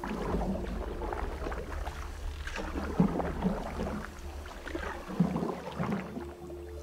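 Wooden canoe paddles stroking and splashing through river water, with sharp knocks about three seconds and about five seconds in, over a low wind rumble on the microphone.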